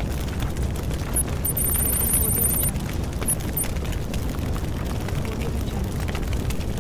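Steady low rumbling roar of a fire sound effect, with a brief burst of rapid high ticking about a second in.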